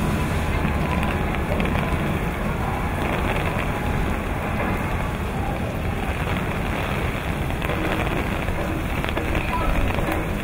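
Heavy rain pouring steadily onto a wet cobbled street, with the low rumble of slow-moving vehicles underneath.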